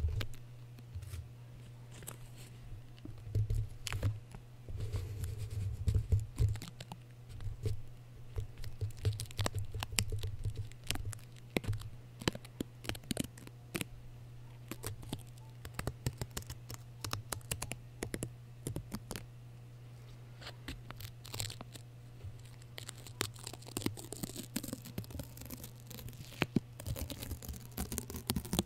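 Adhesive tape stuck on and peeled off a foam-covered microphone at close range: irregular sticky crackles and sharp peeling clicks, with a cluster of soft thumps from fingers on the mic a few seconds in.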